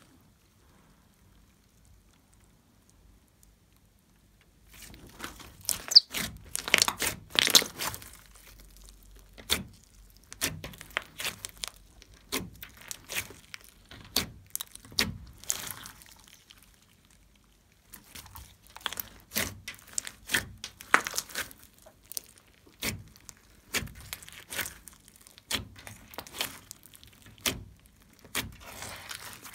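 Slime mixed with clay and small beads being stretched and pressed by hand: runs of wet crackling and sharp popping clicks. Almost silent for the first few seconds, with a short pause about two-thirds of the way through.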